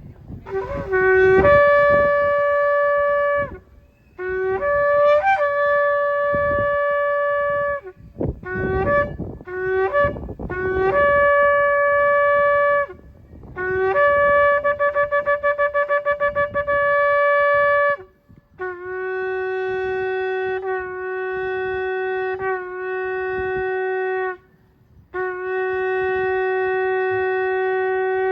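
A shofar blown in a series of blasts, each leaping from a low note up to a higher one. Some blasts are broken into short pieces, and one long blast has a fast wavering in the middle. Near the end comes a blast split into three parts, then a long held note.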